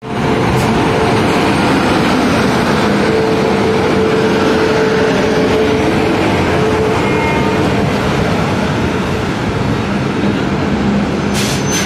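An Indian Railways WAP-7 electric locomotive and LHB coaches pass close by, with a loud, steady rumble of wheels on the rails. A faint steady whine runs for a few seconds in the middle, and a few sharp clicks come near the end.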